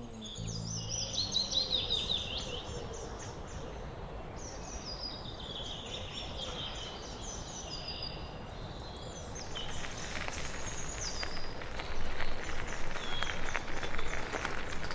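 Several songbirds singing in woodland: short, high, repeated phrases and trills, one after another. From about two-thirds of the way in, a louder run of irregular crackling clicks joins them.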